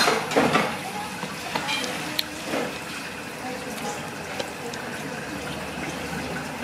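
Ramen shop background noise: water running in the kitchen, small clinks of dishes and indistinct voices, with a louder clatter right at the start.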